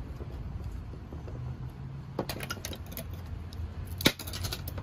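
Small clicks and rattles of wire connectors and tape being handled, with a sharp click and a quick cluster of clicks about four seconds in as a pair of scissors is taken up, over a low steady rumble.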